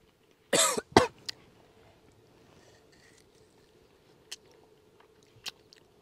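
A person coughs twice in quick succession about half a second in, the first cough voiced and the second sharper. Only a few faint clicks follow.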